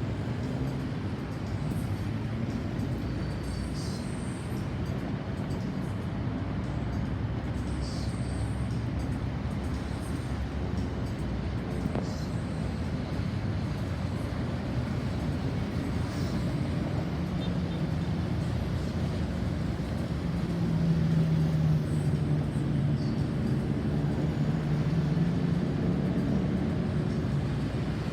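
Road traffic noise, with vehicles passing in a steady rumble. A low engine hum grows louder in the second half as a heavier vehicle comes by. No siren is sounding.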